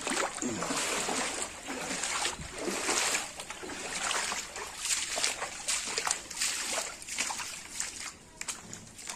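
Footsteps wading through shallow floodwater, with a splash and slosh at each step in an uneven walking rhythm that grows fainter near the end.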